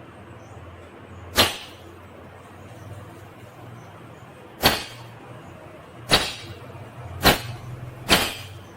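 Five sharp, loud clicks or cracks, spaced irregularly, over a low steady hum.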